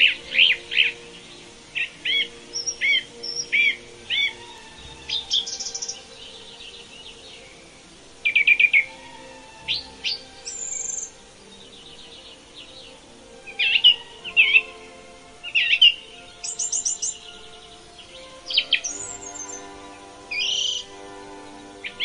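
Several songbirds calling and singing in repeated short chirps, whistled phrases and quick trills, over a soft steady music bed.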